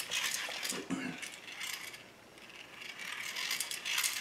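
Plastic gear train of a hand-cranked toy dynamo lantern whirring and clicking rapidly as the crank is turned. It eases off about halfway through, then picks up again.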